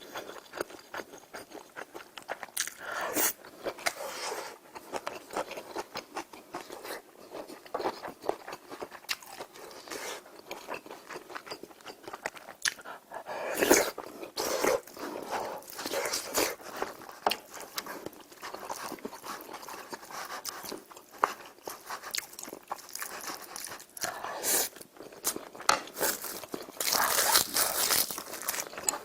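Close-miked eating sounds: chewing and crunching with many small mouth clicks. There are louder, denser stretches about three seconds in, around the middle and near the end.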